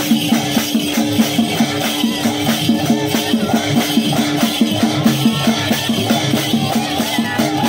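Folk percussion: a barrel drum beaten in a fast, even rhythm together with a pair of shaken metal ball rattles, over a steady held note.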